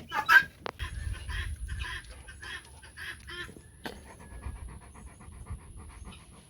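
Turkey hen clucking: a sharp call at the start, then a string of short repeated notes that settles into a fast, even run of clucks.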